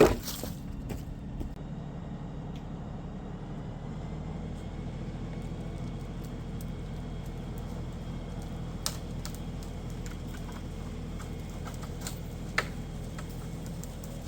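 Farm tractor engine running steadily at an even speed. A sharp knock sounds at the start, and two fainter clicks come later.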